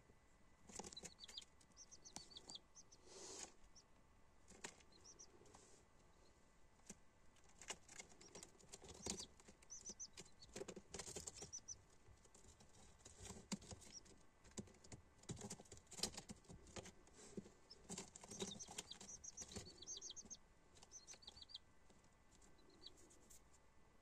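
Shamo chicks peeping in short, high chirps that come in quick little runs, with scattered soft taps and patter from chicks pecking and scratching on the grain-strewn floor.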